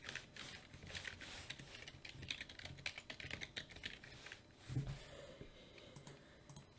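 Faint, fast, irregular keystrokes on a computer keyboard as code is typed, thinning out to a few scattered clicks after about five seconds. A single soft low thump comes just before the typing thins out.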